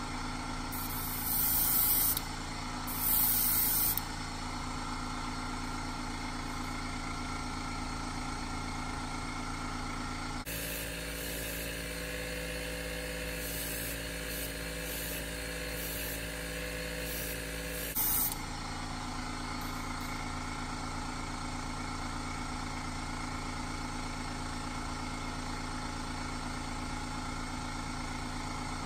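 Airbrush hissing in two short bursts of about a second each as it sprays paint, over a steady motor hum. The hum changes tone for several seconds midway.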